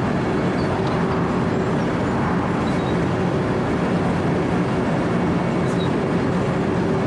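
Wirtgen W 120 CFi cold milling machine running steadily, heard from the operator's platform. Its diesel engine hums while the cutting drum grinds through asphalt in an even, unbroken noise.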